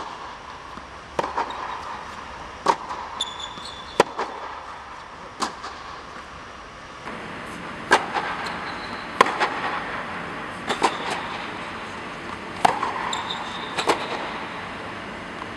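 Tennis balls struck back and forth in a rally on an indoor court, sharp pops of racket hits and bounces about every second or so, echoing in the dome hall. A couple of brief high shoe squeaks on the court surface.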